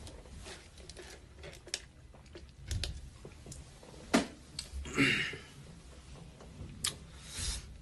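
A denim jacket rustling against the phone's microphone, with scattered light clicks and taps of handling noise. A sharp click comes about four seconds in, with louder rustles around five seconds and near the end.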